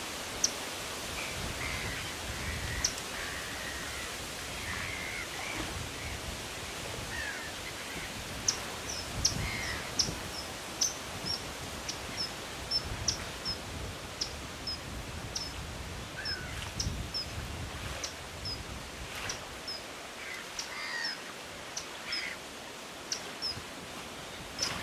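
Common kingfisher giving short, high-pitched call notes over a steady hiss. The notes are sparse at first, then come about one or two a second from roughly a third of the way in. Lower chirps from other birds break in now and then.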